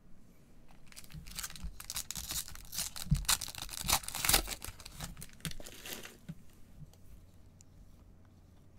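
Foil trading-card pack wrapper being torn open and crinkled by gloved hands: a crackling rip that builds about a second in, is loudest near the middle, and dies away a couple of seconds before the end.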